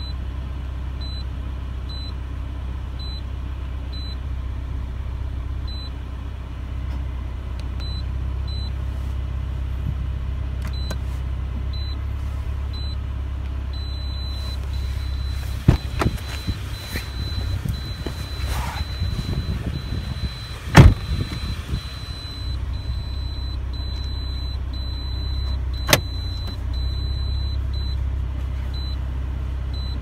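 Car engine idling under the control of a turbo timer, whose high-pitched beep sounds about once a second. About 14 s in the beeping changes to a near-continuous tone with brief breaks, the changed sound that marks the timer's door-lock mode being switched on with the down key. A loud thump about 21 s in, and sharp clicks near 16 and 26 s.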